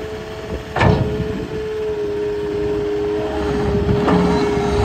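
Caterpillar 259D compact track loader running, its diesel engine with a steady whine, while the loader arms bring the raised bucket down to the ground. A sharp knock about a second in and another near the end.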